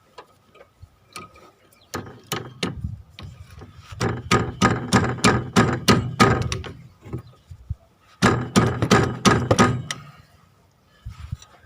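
Hammer blows knocking out a metal bracket on a car's front suspension strut: quick sharp strikes in three runs, the longest lasting about three seconds at roughly four strikes a second.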